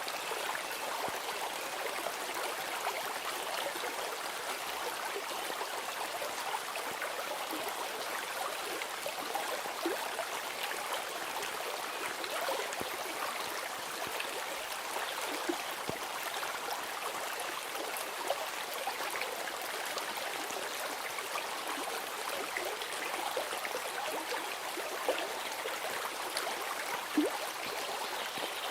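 Babbling stream: steady running water, with scattered small splashes through it.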